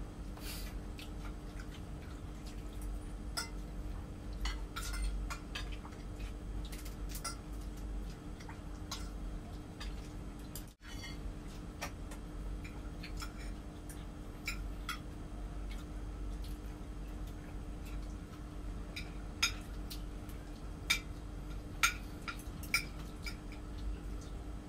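Spoons and forks clinking and scraping on plates and bowls during a meal: scattered light clicks, with a few sharper clinks in the last third. A steady low hum runs underneath.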